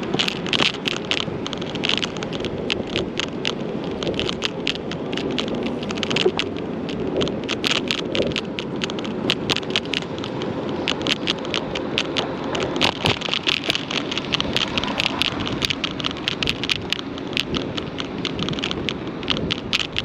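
Steady rumble and dense rattling clicks of wheels rolling over paving stones, the ride jolting the camera mount.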